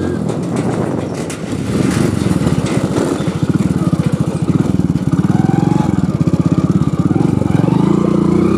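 Hero Splendor motorcycle's single-cylinder four-stroke engine running at low road speed, its exhaust pulsing steadily; the engine picks up a little about a second and a half in.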